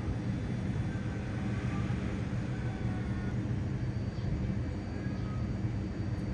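Steady low background rumble, with faint short high chirps now and then.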